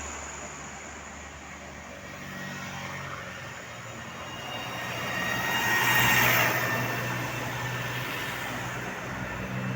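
A tour bus driving past: engine and road noise swell to a peak about six seconds in, then fade.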